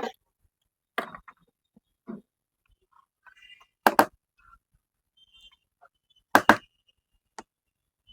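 A run of sharp knocks and taps of hard objects on a work surface, two of them quick doubles, with faint small clicks in between, as tools and the circuit board are handled while soldering.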